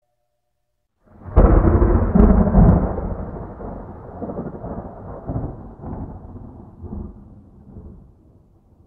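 A thunderclap sound effect: a sudden loud crack about a second in, a few more cracks, then a rolling rumble that pulses and fades away over several seconds.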